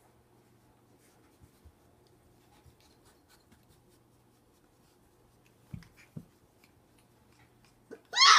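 Puppies wrestling on towels: faint scratching and soft bumps of paws and bodies, two dull thumps about six seconds in, then a short high-pitched puppy yelp, rising in pitch, at the very end.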